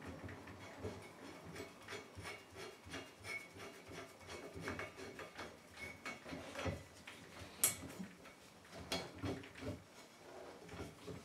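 Metal drill fittings being handled and screwed together: the adapter bit threaded onto the core drill's extension bar and fitted to the drill, with light rubbing and scattered small clicks, and a few sharper clicks, the loudest about eight seconds in.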